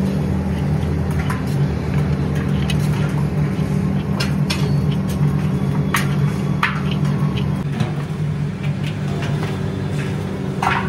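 A steady low mechanical hum from a motor or engine, with one of its tones dropping out about two-thirds of the way through. A few sharp metallic clinks rise above it, the sound of a steel ladle knocking against aluminium cooking pots.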